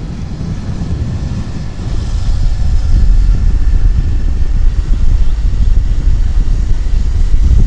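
Two-wheeler riding along a concrete road: a steady engine drone under heavy low rumble, growing louder about two to three seconds in.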